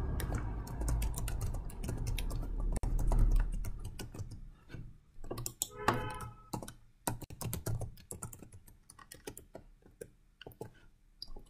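Typing on a computer keyboard: a run of quick, irregular keystrokes.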